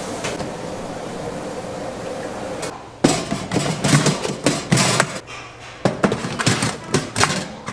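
Steady kitchen noise, then from about three seconds in a run of about a dozen irregular sharp knocks and clatters of kitchen utensils.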